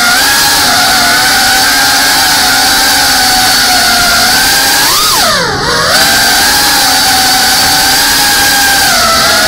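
FPV quadcopter's brushless motors and propellers whining steadily at a high pitch. About five seconds in, the pitch briefly rises, then drops sharply and climbs back.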